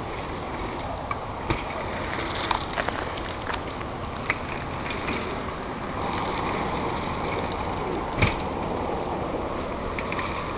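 Bicycles riding over a small dirt jump on a bank of dry leaves: a steady rustling rush of tyres on dirt with several sharp knocks from wheels landing, the loudest about eight seconds in.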